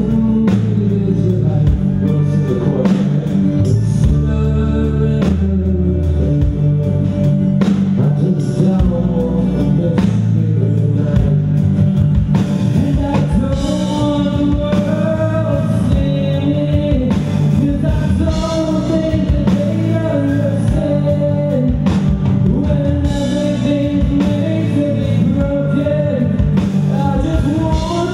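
Live band playing a rock song: a sung lead vocal over guitar, bass and drums, continuous throughout.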